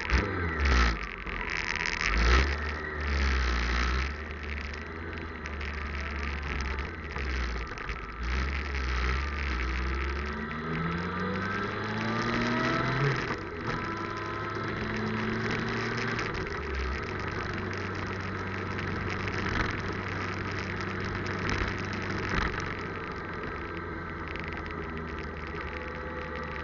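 Motorcycle engine under heavy low wind rumble, pulling away from a standstill and accelerating up through the gears, with several rising sweeps in pitch about halfway through, then running at a steady cruise.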